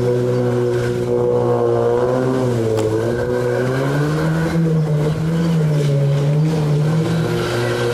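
Evinrude MFE 55 two-stroke jet-drive outboard running at planing speed. Its pitch dips about a third of the way in, then climbs and wavers as the throttle and load change.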